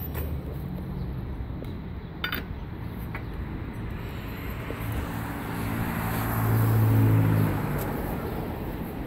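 A motor vehicle passes close by, its engine hum and tyre noise swelling to a peak about two-thirds of the way through, then cutting off and fading. A single sharp click comes about two seconds in.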